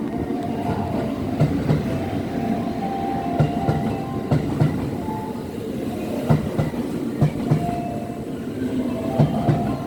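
Electric train rolling slowly along the track, its wheels clicking over rail joints in pairs every second or two, over a steady rumble with a faint whine.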